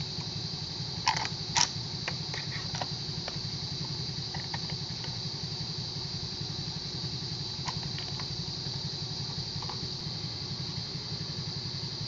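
Yamaha Sniper 150's single-cylinder engine idling steadily with a fast, even pulse. A few sharp metallic clicks from the crossbar and its bolts being handled, the loudest two about a second in.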